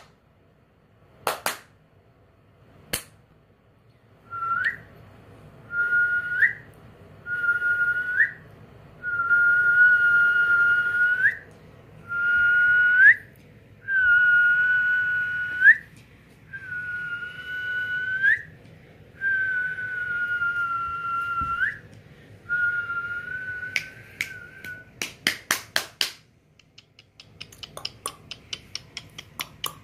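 A person whistling over and over: about nine steady, high whistles, each held for a second or so and ending in a quick upward flick. Two sharp snaps come before them, and a fast run of clicks comes near the end.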